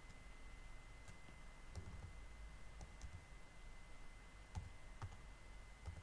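Faint, irregular clicks of a computer keyboard as a phone number is typed in, a few keystrokes scattered over several seconds, with a faint steady high-pitched tone behind them.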